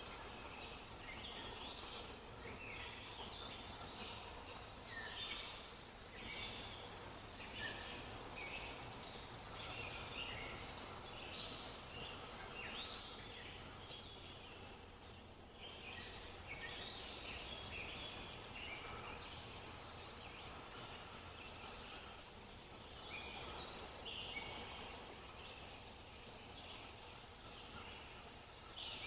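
Many small birds chirping continuously over a low steady background hum.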